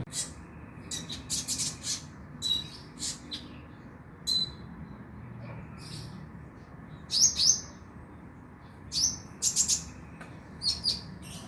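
Konin (kolibri ninja sunbird) calling: short, sharp, high chirps in irregular clusters of two to four, over a faint low hum.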